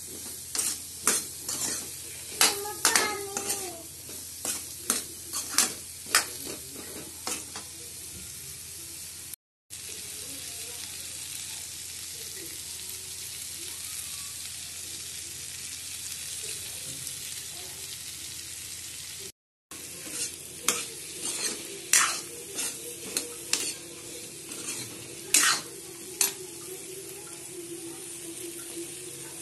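Potatoes and green beans frying in a kadai: a steady sizzle, with a steel spoon scraping and clicking against the pan as the vegetables are stirred during the first several seconds and again in the last third. The sound drops out briefly twice.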